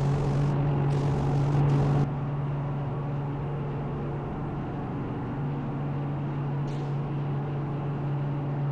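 Steady low mechanical hum, with short bursts of hissing air that stop about two seconds in.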